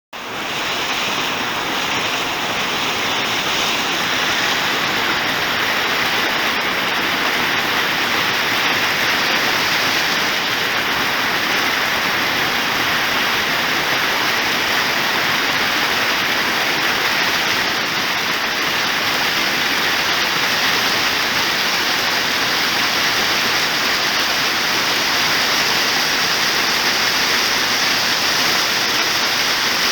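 Waterfall pouring close by: a dense, steady rush of falling water that cuts in suddenly at the start and holds unchanged throughout.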